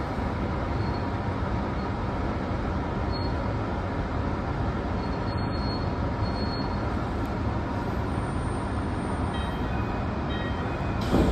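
Tsukuba Express train running through a tunnel, heard from inside the front car: a steady rumble of wheels on the rails. It suddenly gets louder at the very end.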